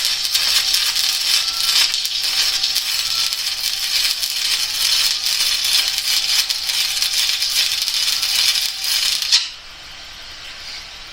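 Electric arc welding on a steel snowplow bracket: a steady, crackling arc that runs for about nine seconds, then cuts off abruptly as the bead is stopped.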